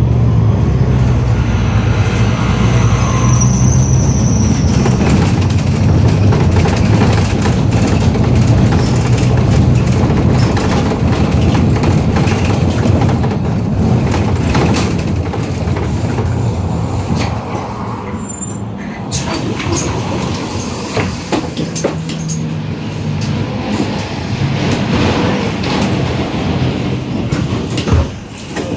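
City bus heard from inside the passenger cabin: engine and road noise running loud and steady, with frequent small rattles and knocks. The engine hum fades about halfway through as the bus slows, then picks up again, and there is a sharp knock near the end.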